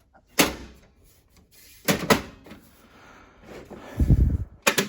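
The case lid of a Lenovo P620 workstation being fitted back on: a series of sharp knocks and clunks, then a heavier low thump about four seconds in and quick clicks near the end as it seats.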